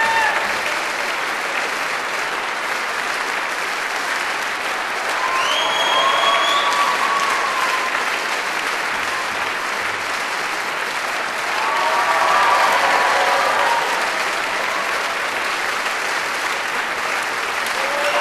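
Audience applauding steadily, with voices cheering over the clapping about five seconds in, one rising to a high whoop, and again around twelve seconds.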